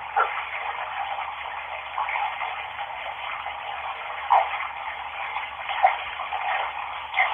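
Water running steadily from a tap, a continuous hiss with a few brief louder splashes.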